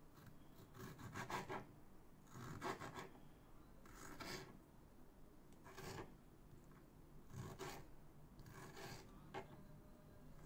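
A knife slicing cherry tomatoes on a plastic cutting board: short, faint rasping strokes as the blade saws through the skin and scrapes the board, about seven strokes coming every second or two.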